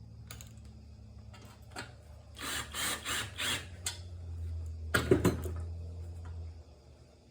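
Hand-tool work on a mower engine: four scraping rasps about two and a half seconds in, then a short clatter of metal knocks about five seconds in, with a faint steady hum underneath.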